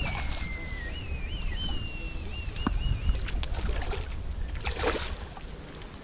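A high whistle: one falling note, then a wavering run of short notes that stops about three seconds in, over a steady low rumble with a few brief knocks.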